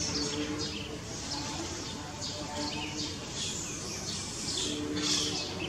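Animal calls: a run of short, high chirps, a few each second, with longer, steady, lower-pitched calls near the end.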